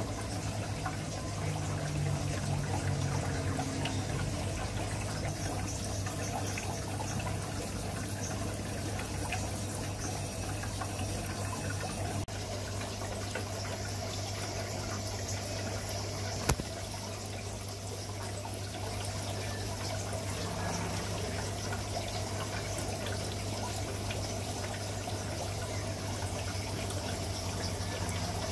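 Water trickling steadily over a low, steady hum, with one sharp click about sixteen seconds in.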